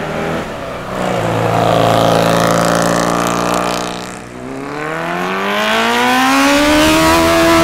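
Hill-climb race cars accelerating past one after another. First a rally-prepared sedan's engine holds a steady note as it goes by. Then, about four and a half seconds in, an open-cockpit sports racer's engine climbs steadily in pitch as it pulls away under full throttle.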